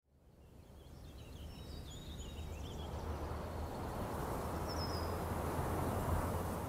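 Outdoor nature ambience fading in from silence: a steady rushing noise over a low rumble. Small birds chirp in short, quick phrases through the first few seconds, and once more about five seconds in.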